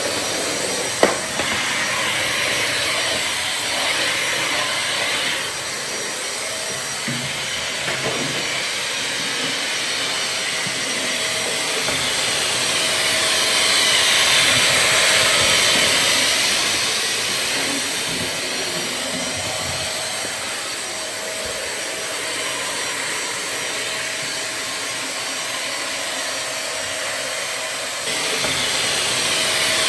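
Vacuum cleaner running steadily: a loud, even rush of air with a faint constant hum. It slowly swells louder and brighter around the middle and again near the end. There is one sharp click about a second in.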